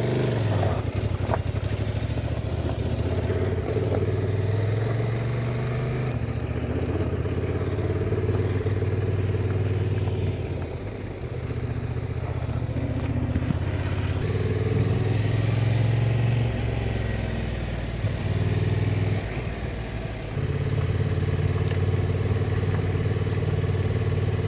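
Honda Transalp adventure motorcycle's engine running under way off-road, its note rising and falling with the throttle. It eases off about ten seconds in and again a little before twenty seconds, then picks back up.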